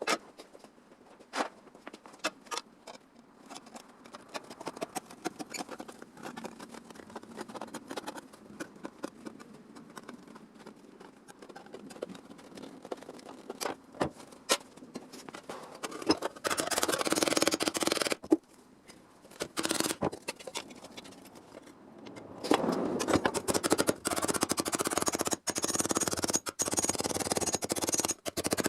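Sheet-metal work on a car body panel: scattered clicks, taps and scrapes, then a loud continuous noise for about two seconds, and again for the last six seconds with brief breaks.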